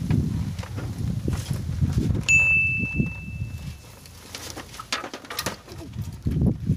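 Knocks, scuffs and thumps of an angler moving about on a wooden raft deck and handling a fishing rod, over a low rumble that fades after about four seconds. A steady high beep sounds for about a second and a half near the middle, and a heavier thump comes near the end.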